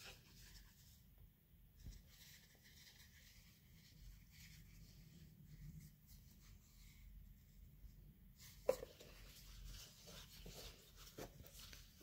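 Faint rustling of a silk scarf and its packaging being handled, with one sharp click near the end.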